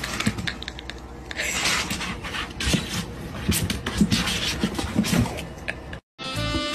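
A kitten's claws scrabbling and scraping on hard plastic cat-litter jugs, with irregular taps and knocks as it climbs over them. The sound cuts off about six seconds in and music starts.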